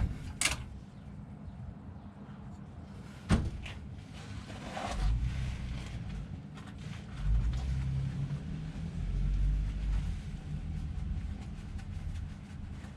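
Sharp knocks, then uneven low clunking and rumbling, as a Chevrolet C10's transmission is worked loose from the engine's bell housing. One knock comes at the start and another about three seconds in. The low rumbling runs from about five seconds to eleven seconds in.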